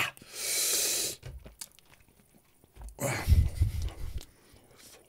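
Hard, hissing breaths huffed out through the mouth against the burn of a Carolina Reaper chili: a long hiss about half a second in, and a heavier, gusty breath on the microphone about three seconds in.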